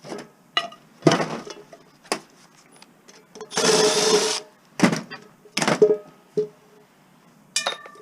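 Metal scrap parts clinking and knocking while being taken apart with a screwdriver, some hits leaving a short metallic ring, with a longer rattling scrape about halfway through.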